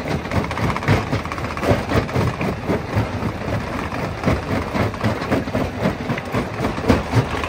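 Jaw-type rock crusher running as it crushes stone: a steady machine drone broken by frequent irregular knocks and clatter of rock.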